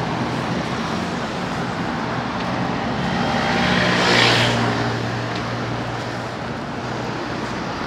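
City road traffic: a vehicle engine hums steadily under the noise of tyres, and one vehicle passes close, swelling to its loudest about four seconds in and then fading.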